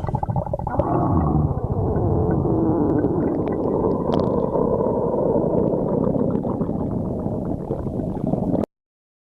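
Human stomach growling: a long, continuous, low gurgling rumble that cuts off suddenly near the end.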